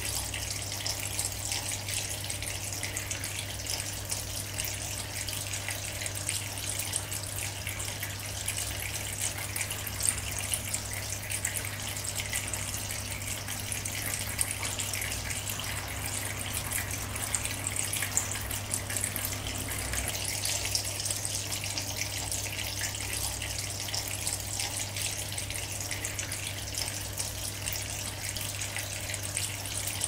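Homemade tiered tabletop water fountain running: thin streams of water trickling and splashing steadily from bowl to bowl into the basin, fed by a small submersible pump. A low steady hum sits underneath.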